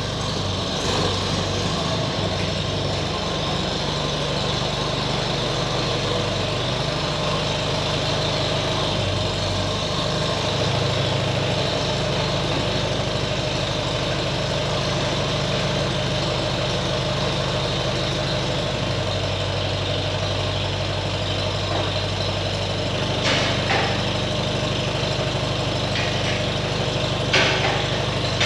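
Diesel engine of heavy farm machinery running steadily, its low note shifting slightly now and then. A few short knocks come near the end.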